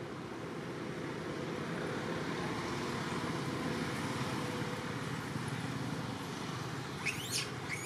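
Steady rushing outdoor background noise, with two short, sharply rising high squeaks near the end.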